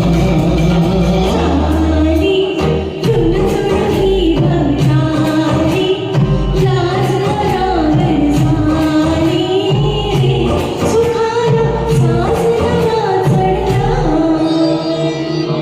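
A singer performing a song over a karaoke backing track. A single sung melody line glides over a steady bass and accompaniment.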